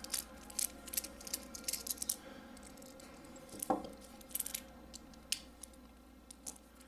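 Faint, irregular small clicks and metal taps of a precision Torx bit driver turning out the tiny pocket-clip screws of a small folding knife, with the clip lifting free.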